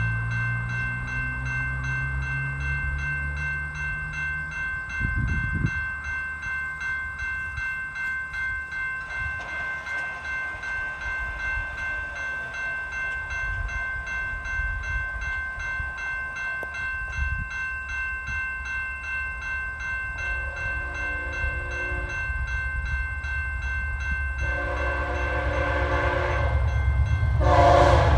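Railway crossing bell ringing rapidly and steadily as the crossing signals activate. From about two-thirds of the way in, an approaching VIA Rail locomotive's horn sounds two long blasts and a short one, the start of the standard grade-crossing signal, over the growing rumble of the oncoming train.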